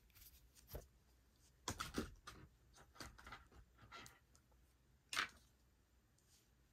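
Hands handling small plastic parts and a coiled charging cable: faint scattered clicks and rustles, with the loudest click about five seconds in.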